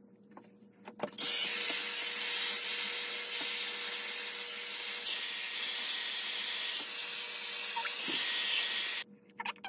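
Revlon One-Step hot-air brush dryer switched on about a second in, blowing steadily with a hissing rush of air, then switched off abruptly near the end. A few small handling clicks come just before and after it.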